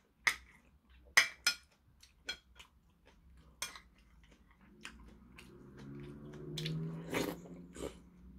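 Metal spoon clinking sharply against a porcelain soup bowl several times while scooping dumpling soup. Then, over the last few seconds, a man's low, drawn-out hum as he takes a spoonful to his mouth.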